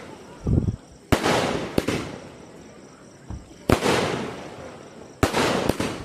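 A multi-shot firework cake going off: about five sharp bangs at uneven gaps of roughly half a second to two seconds, each trailing off into a fading hiss, with a couple of duller thumps between them.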